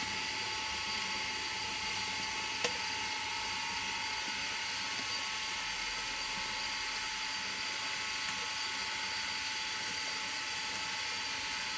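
Electric water pump running steadily with a high, even whine as it pushes water down a hose into a borehole being drilled. A single sharp click about two and a half seconds in.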